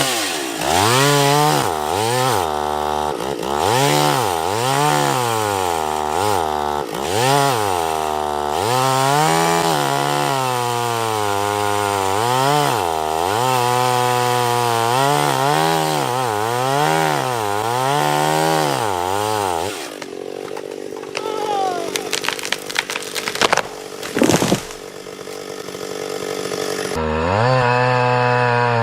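An antique Stihl two-stroke chainsaw running in a back cut through a large pine trunk with a freshly sharpened chain, its engine pitch rising and falling about once a second as it bites and revs. About twenty seconds in the saw drops off, a few loud sharp cracks and knocks follow, and near the end the saw runs again.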